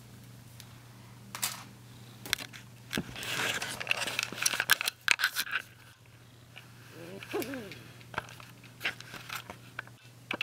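Crinkling and rustling with several sharp clicks, loudest in the middle. About seven seconds in there is a brief cat meow, and a steady low hum runs underneath.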